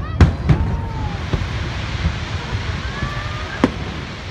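Aerial fireworks shells bursting overhead: a loud bang just after the start, then three more spaced out over the next few seconds.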